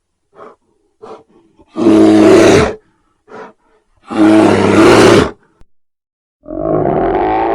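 Bear roaring twice, each roar loud and about a second long, with short low grunts before and between them. About six and a half seconds in, a steady, dense droning sound begins.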